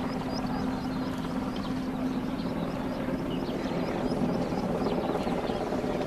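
Flying aircraft's motor droning steadily at one pitch, with no change in speed.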